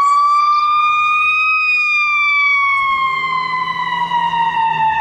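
Ambulance siren sounding a slow wail. A single long tone rises for about the first second and a half, then slowly falls.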